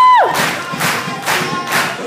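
A long, high sung note ends just after the start, then stage-show dance music takes over with a steady beat of about two strokes a second and choir voices.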